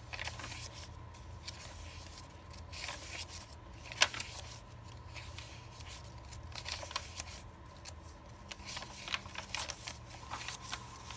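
Pages of a handmade journal being turned by hand: soft rustling and brushing of tea-stained paper and wallpaper pages, with a single sharp tap about four seconds in.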